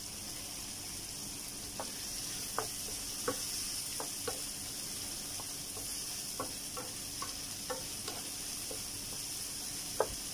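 Chopped tomato and onion sizzling in a nonstick frying pan while a wooden spatula stirs them, knocking and scraping against the pan about once or twice a second. The sharpest knock comes near the end.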